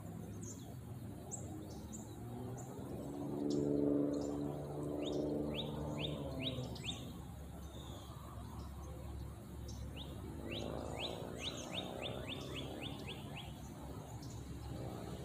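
Small birds chirping, two quick series of short downward-sweeping chirps, one about five seconds in and a faster run about eleven seconds in. Under them a low hum swells twice, loudest about four seconds in and again near eleven seconds.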